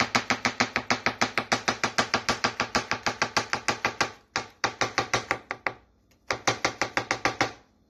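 Rapid knife chopping on a cutting board, about eight quick strokes a second, cutting mushrooms into chunks. The chopping runs in three bursts with two short pauses, the last burst stopping shortly before the end.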